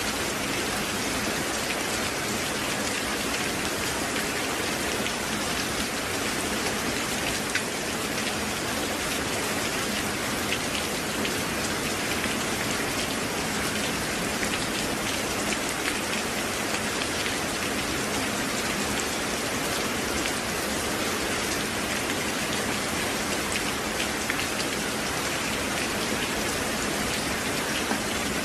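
Steady, even rain falling, a dense hiss flecked with countless individual drops ticking.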